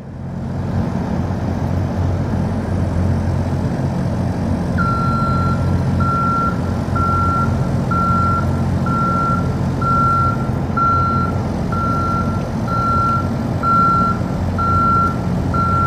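A vehicle's backup alarm beeping at a steady pace, about four beeps every three seconds, starting about five seconds in. Under it a heavy engine runs steadily.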